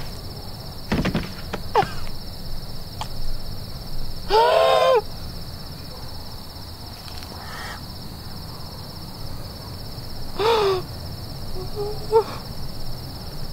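A gagged woman's muffled crying: three short strained wails through the gag, the loudest and longest about a third of the way in. Crickets chirr steadily throughout.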